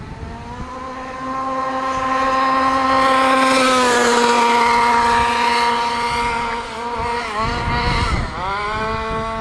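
The 34cc two-stroke engine of a 1/5-scale FG Modellsport car revs up under throttle and then holds a steady high pitch instead of climbing further. Its pitch dips twice near the end and rises again. The engine gives no more power past half throttle, which the owner cannot explain.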